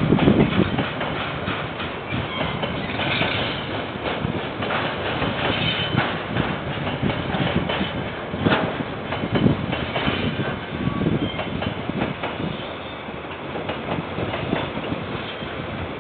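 Freight train's container wagons rolling past, the wheels clacking and knocking over the rail joints with a few faint high squeals, heard through a security camera's microphone.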